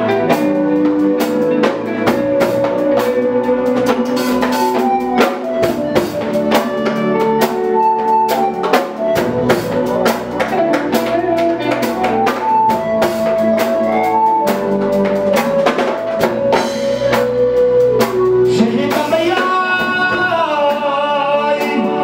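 Live band playing: a keyboard melody of held notes over a drum kit with rimshots. A male voice begins singing near the end.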